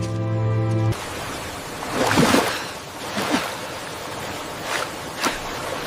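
A held music chord cuts off about a second in, giving way to rushing river water with several short splashes.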